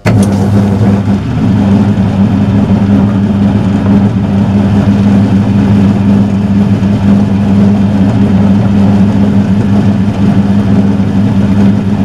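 Metal lathe running steadily under its electric motor: a loud, even hum that sets in abruptly.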